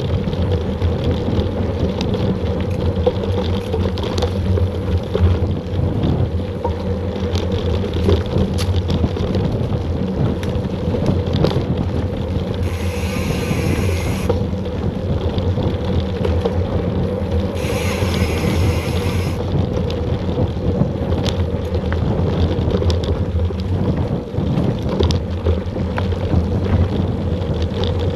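Mountain bike ridden fast on a dirt trail: steady wind rush and rumble of tyres and bike over the ground. Twice in the middle comes a brief high-pitched buzz, each about a second and a half long.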